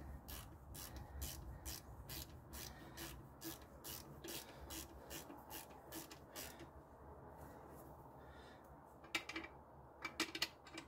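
Socket ratchet clicking faintly as an alternator mounting bolt is run down, not yet tightened: about three clicks a second, a pause, then another quick run of clicks near the end.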